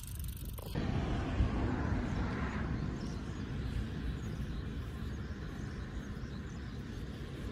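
Wind buffeting the phone's microphone, an uneven low rumble that starts abruptly about a second in.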